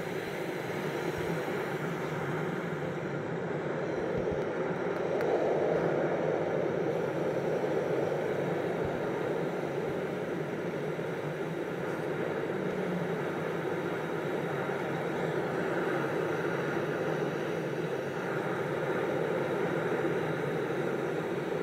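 A steady rumbling noise with no clear tones, swelling slightly about six seconds in.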